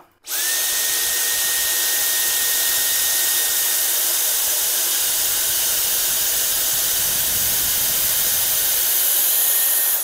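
Cordless stick vacuum cleaner with a mini motorised brush head switched on, its motor spinning up with a brief rising whine, then running steadily with a high whine over a loud rushing of air while it sucks up debris. It cuts off at the end.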